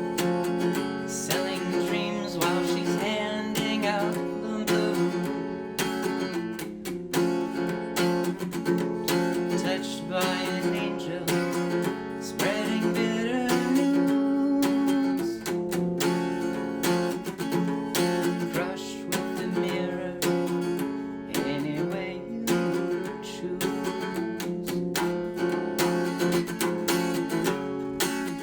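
Acoustic guitar music: a strummed instrumental passage with repeated strum strokes and a sliding note about halfway through.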